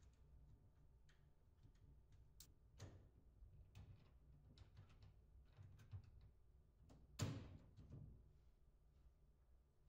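Faint, scattered clicks and light taps of small metal hardware being handled: long-nose pliers, bolts and nuts at a perforated metal bracket on a greenhouse's aluminium frame. The loudest tap comes about seven seconds in.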